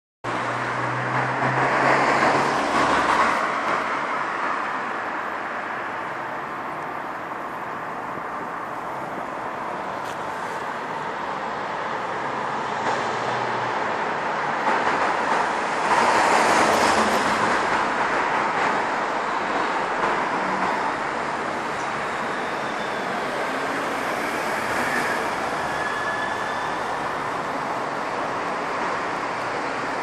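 Steady urban traffic noise with vehicles passing: it swells louder about two seconds in and again around the middle. A faint thin squeal comes near the end.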